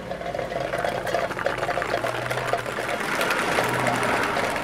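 A steady, rapid mechanical clatter with a faint hum beneath it.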